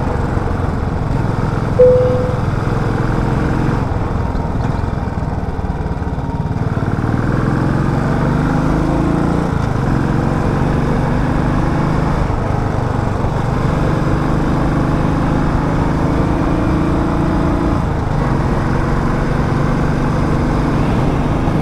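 Motorcycle engine running on the move, its note rising and falling with throttle and gear changes. A brief single tone sounds about two seconds in.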